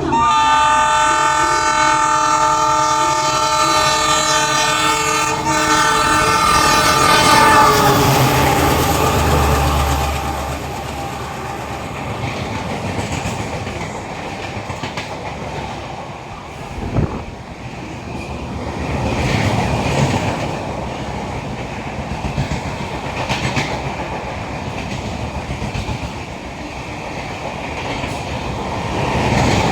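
Indian Railways WDM-3A diesel locomotive's horn sounding one loud, long multi-tone blast for about eight seconds. Then the locomotive's engine chugs past and the express coaches clatter over the rail joints, with a sharp clank about seventeen seconds in.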